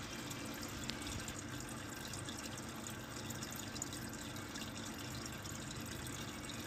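Steady background hum and hiss with no clear events, and one faint click about a second in.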